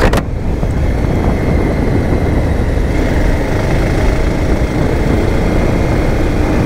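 Motorcycle running steadily on the move, its engine note mixed with wind rushing over the microphone.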